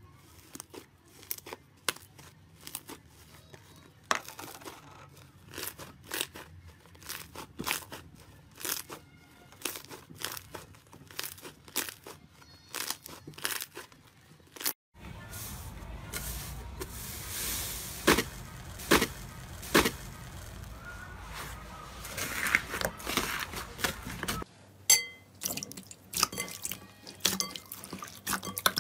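Hands squeezing, pulling and stretching thick slime, giving quick sticky clicks, crackles and small air pops. For about ten seconds in the middle a steady low rumble runs under the crackling. Near the end comes wetter squelching as glossy clear slime is kneaded in a bowl.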